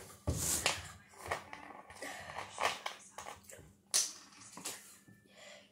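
Irregular knocks, taps and rustling of things being handled close to the phone, about half a dozen sharp strokes with the strongest about half a second and four seconds in.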